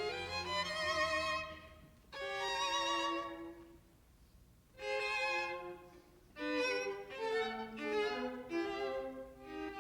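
Solo violin playing short unaccompanied phrases with vibrato, about four of them, each broken off by a brief pause.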